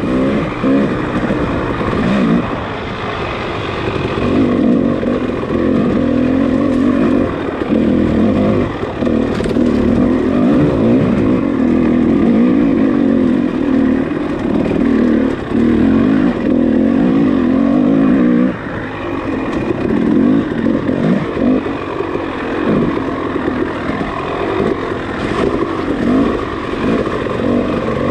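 Off-road dirt bike engine revving hard under load, the revs climbing and falling continually as the throttle is worked, with the throttle shut briefly a few times.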